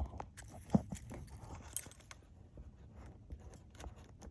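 Keys jangling and clicking as they are handled, with two sharper clicks about a second apart. The keys carry an add-on kill switch whose two silver contacts are being lined up so the car can start.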